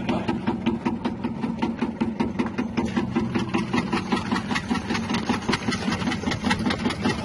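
Electric cassava slicing machine running steadily: its motor hum under a rapid, even clatter of about five clicks a second from the rotating blade.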